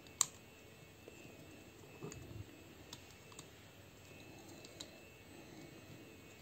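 Plastic parts of a Zeta Toys Mini Superitron transforming figure clicking as its wing panels are folded by hand: one sharp click just after the start, then a few faint ticks and quiet handling rustle.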